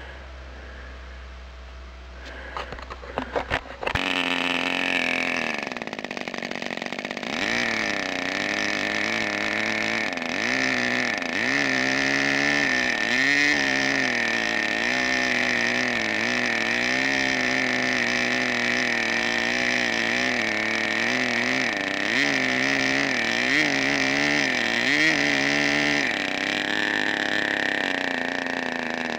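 Small two-stroke model aeroplane engine being started: a few sharp pops a little before four seconds in, then it catches and runs at high speed with a pitch that wavers up and down as the throttle is worked, settling a little lower and quieter near the end.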